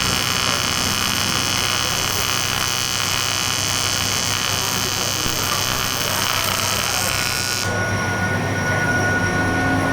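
AC TIG (argon) welding arc on an aluminium engine oil pan, buzzing steadily with a hiss; the hiss cuts off abruptly about three-quarters of the way through.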